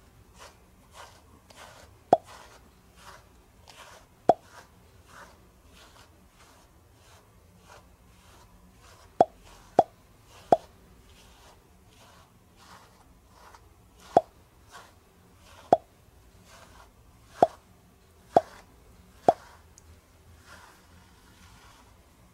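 A pet brush with a white pad drawn again and again through a shedding white Pomeranian's thick fur, a soft stroke every half second or so. About ten sharp, short plops at uneven spacing stand out above the brushing.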